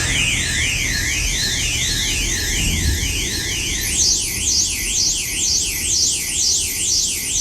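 Synthesized emergency-alert alarm tone: two pitches sweeping up and down against each other about twice a second, jumping to a higher, shriller range about four seconds in, over a steady low hum.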